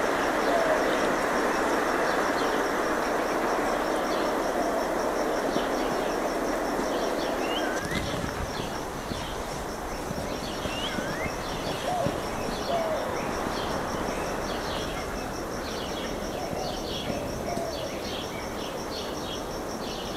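Outdoor nature ambience: scattered bird calls over a steady, high-pitched pulsing trill. A rushing noise underneath stops abruptly about eight seconds in.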